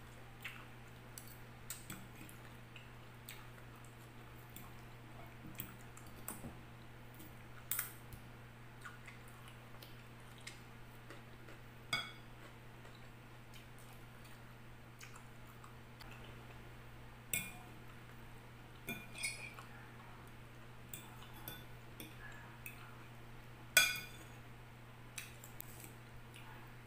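Metal fork clinking and scraping against a glass bowl while picking through a leafy vegetable salad, in scattered sharp clinks at uneven intervals, the loudest a few seconds before the end. A steady low hum runs underneath.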